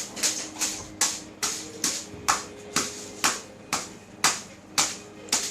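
Sharp, evenly spaced clicks, about two a second, over a faint steady hum.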